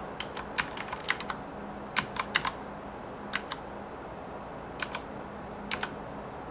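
Keys of a Corsair K65 RGB mechanical keyboard being pressed in short irregular bursts: a quick run of clicks in the first second or so, then small groups of two to four presses with pauses between.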